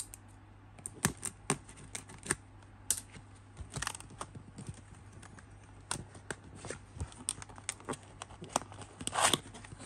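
Cardboard box being opened by hand, with the tape slit and the flap tugged and scraped, giving scattered irregular clicks and scratches over a faint steady low hum.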